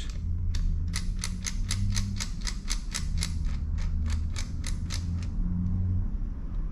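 Ratchet clicking at an even pace, about four clicks a second, as a bolt that has just been broken loose is backed off; the clicking stops about five seconds in. A steady low hum runs underneath.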